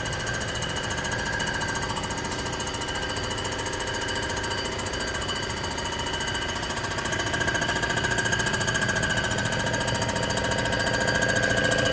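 Comec ACF200 head-surfacing machine running steadily as its cutter takes a light cleanup pass across a Rambler 327 cylinder head, a steady machine whine of several tones. It grows slightly louder about seven seconds in.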